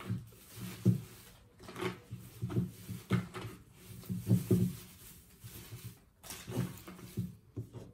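Easter grass rustling and crinkling as hands push and fluff it into a plastic bucket, with irregular small knocks and scrapes from the bucket being handled.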